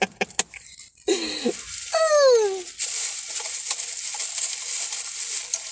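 Paper food wrapper crinkling and rustling as it is unwrapped by hand, starting about three seconds in. Before it, two short vocal sounds, the second sliding down in pitch.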